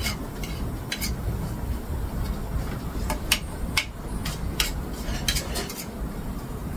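Fork clinking and scraping against a small plate while mixing a dipping sauce of salt, chilli and herbs, in sharp, irregular taps a second or so apart.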